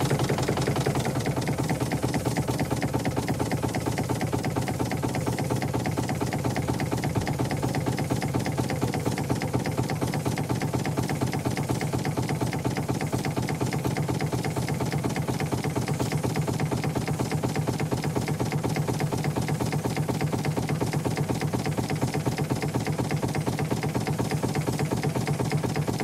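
Steam launch's steam engine running steadily, with a fast, even beat.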